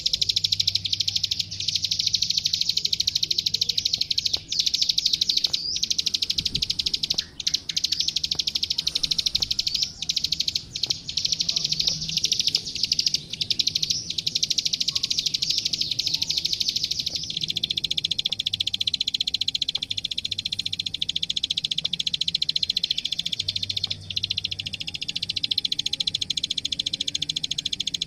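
Klik-klik (ciblek sawah) prinia singing a continuous, very fast, high-pitched chattering song of rapid repeated notes, with only a few split-second breaks.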